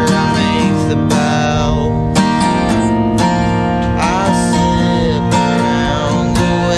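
Acoustic guitar strummed steadily in a folk song, with a voice singing over it in places.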